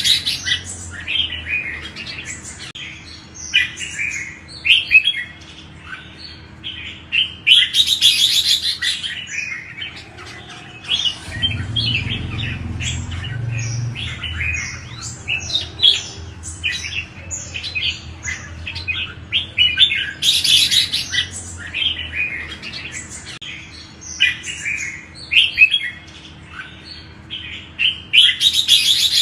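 Red-whiskered bulbul singing, a steady run of quick, bright chirped phrases with a harsh rasping burst every several seconds.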